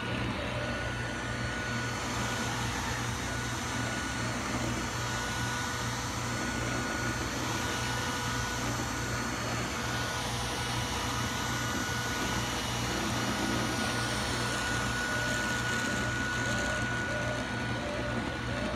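Bobi Pet robot vacuum running across a rug: a steady motor hum and whir, with a thin high whine that fades in and out.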